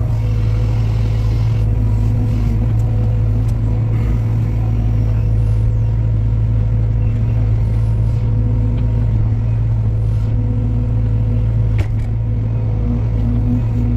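Heavy machine's diesel engine running steadily at a constant speed, with a single sharp clank about twelve seconds in.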